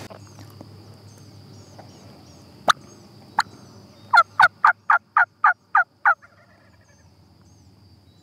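Wild turkey calling: two single sharp notes, then a quick run of eight loud notes at about four a second.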